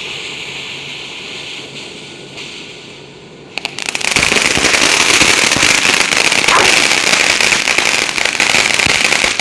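A ground firework hissing steadily, then about three and a half seconds in it breaks into loud, rapid, continuous crackling pops.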